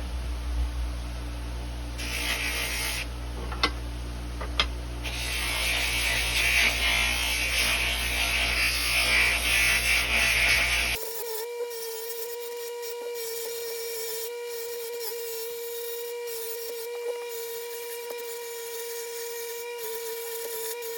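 Power tools polishing a stainless steel bar spoon. First a motor hums while the abrasive scrapes over the metal with a hiss that swells and eases. About halfway through the sound changes abruptly to a steady, even high-pitched whine of a fast-spinning tool.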